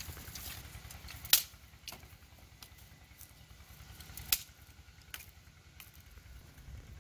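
Dry sticks snapping in two sharp cracks, about a second in and again about four seconds in, with lighter twig cracks and rustling of dry brush between.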